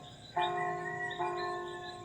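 Church bell struck twice, a little under a second apart, each strike ringing on and slowly fading, with a high chirp repeating behind it.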